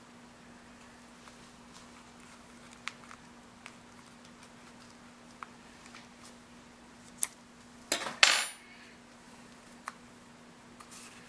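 Small hard plastic clicks and taps from a 1/6-scale action figure's leg and boot being handled and pressed together, a sharp click every second or two. About eight seconds in comes a louder clatter: two quick clicks and a short scrape. A faint steady hum runs underneath.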